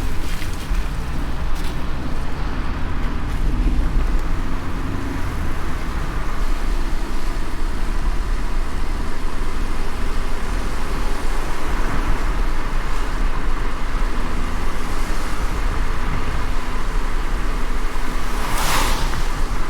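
Car driving on a wet road in the rain: a steady low rumble with the hiss of rain and wet tyres. Near the end comes a brief, louder whoosh.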